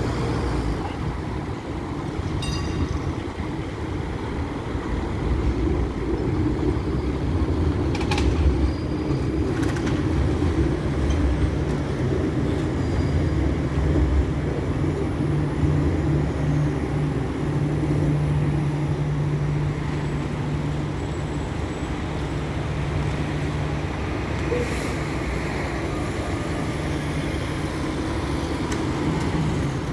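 Tram passing close by over steady city street traffic, with a steady low hum and a few short knocks.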